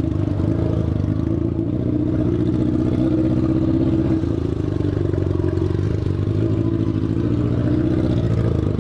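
Yamaha FZ6 inline-four motorcycle engine running steadily, making a strange noise and misfiring now and then, with a loud exhaust that has no catalytic converter.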